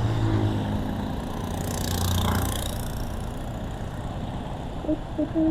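A vehicle driving on a wet highway: a steady low engine hum and road noise, with a whoosh from a passing vehicle about two seconds in. A couple of short pitched notes near the end.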